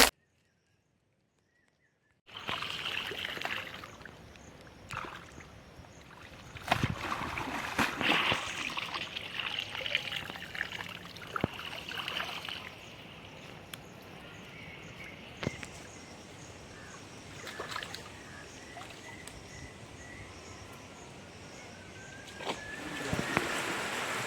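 Water splashing and trickling in irregular bursts, with scattered sharp splashes, starting after about two seconds of silence.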